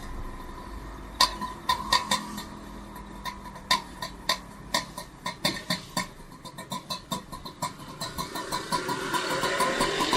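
A string of sharp clicks, few at first and then coming faster and faster, followed near the end by a vehicle engine rising in pitch as it speeds up.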